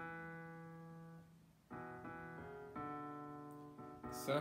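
Background piano music: slow, sustained chords, a new chord struck about every second and a half and left to fade. A brief louder sound comes near the end.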